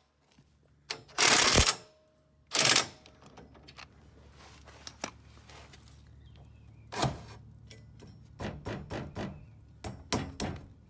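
Three short bursts from a power tool driving bolts, followed by lighter metal clicks and knocks as parts are handled and fitted.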